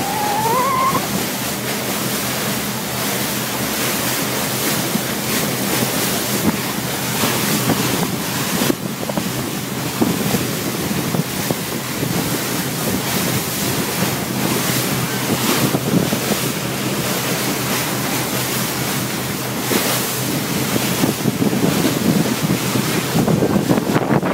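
Wind buffeting the microphone over the rush of water from a motor cruiser under way, with a steady low engine drone underneath. The gusts grow a little louder near the end.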